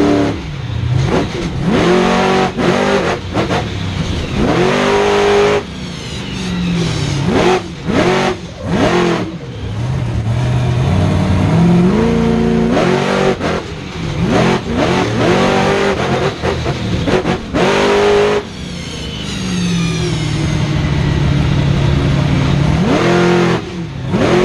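Monster truck's supercharged V8 engine heard from inside the cab, revving hard in repeated surges. The pitch climbs, drops sharply as the throttle is lifted, then climbs again, many times over.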